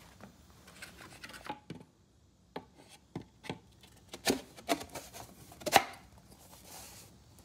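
Plywood boards being handled, knocking and scraping against each other in a series of sharp knocks, the loudest about four and six seconds in.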